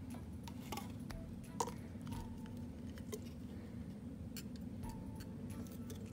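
Light clinks and taps as a glass snow globe and its decorative base are handled, with one sharper knock about a second and a half in, over a low steady hum.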